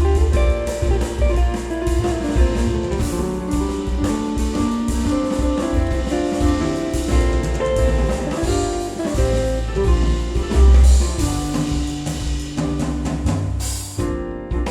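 Music playing: a band track with guitar and drums over a strong bass line.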